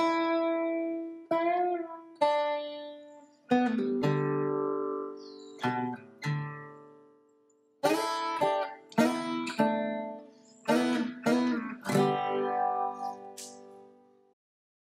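Intro music on guitar: plucked notes and strummed chords that ring and die away, with a short pause about halfway through, fading out near the end.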